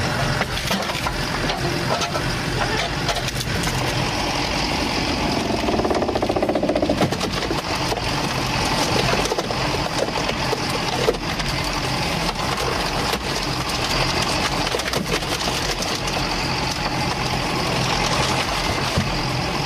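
Engine of a log-splitting machine running steadily, with frequent sharp clicks and cracks and one louder crack about eleven seconds in.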